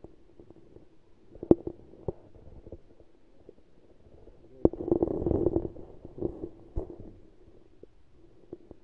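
Underwater sound picked up by a camera lowered under the ice onto a pond bottom: a muffled low hum with a few sharp knocks. A louder stretch of gurgling rumble comes about five seconds in.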